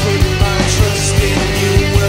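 Music track with a fast, steady drumbeat, about two and a half beats a second.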